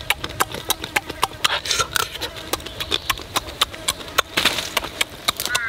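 Close-up chewing and lip smacking while eating cooked crab: a rapid, irregular string of sharp clicks.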